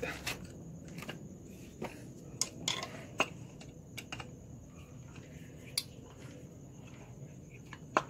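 Scattered light metallic clicks and taps as a washing-machine motor's coupling and mounting plate are handled and a screwdriver is worked on a screw, with most of the clicks in the first half.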